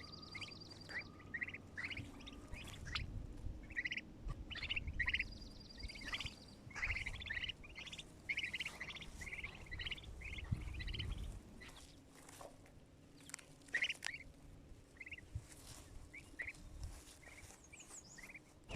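Small birds chirping and trilling in many short, repeated notes, with a low rumble under them during the first half.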